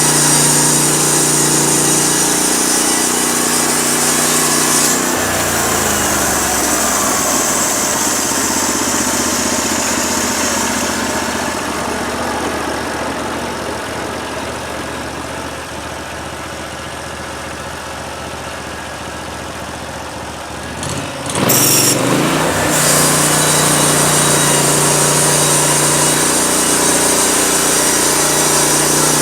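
Portable band sawmill's gas engine running at speed, then slowing to a lower idle about five seconds in. It is throttled back up with a sudden jump around twenty-two seconds in and runs steadily again.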